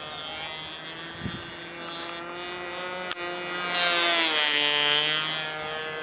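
ASP 25 two-stroke nitro glow engine of an RC plane running at high throttle in flight. It gets louder as the plane passes close overhead about four seconds in, and its pitch drops as it goes by.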